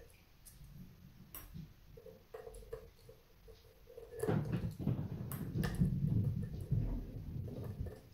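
Light clicks and taps of a screwdriver and the microscope's housing being handled. About four seconds in, louder rubbing and rustling handling noise starts, with sharp clicks mixed in, and fades near the end.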